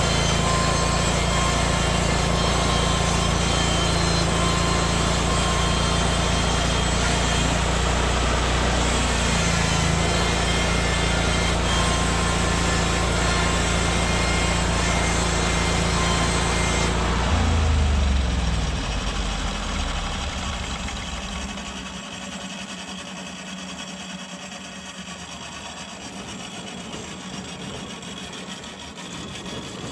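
Norwood MX34 bandsaw mill's gas engine running steadily while the band blade saws through a log. About 17 seconds in, the cutting noise cuts off and the engine slows and dies away over a few seconds, leaving a quieter steady hiss.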